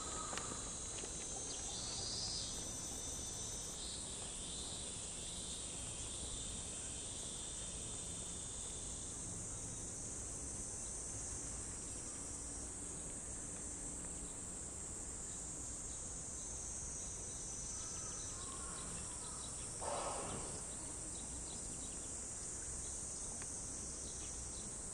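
Cicadas singing in a steady, high-pitched chorus, with a short louder noise about twenty seconds in.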